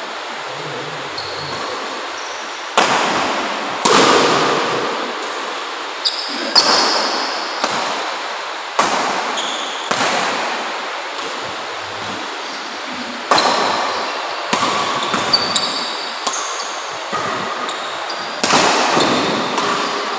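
Badminton rackets striking the shuttlecock in a rally, about fifteen sharp hits at an irregular pace of roughly one a second, each echoing in the large hall, with short squeaks of shoes on the court between them.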